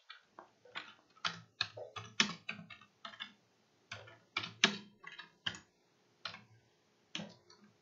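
Typing on a computer keyboard: irregular runs of keystrokes, with a pause of about a second and a half around six seconds in before a few more keys.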